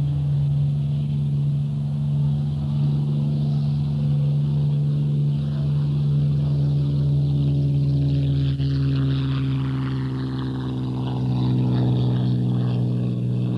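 Supermarine Spitfire's V12 piston engine running steadily in flight, a deep even drone.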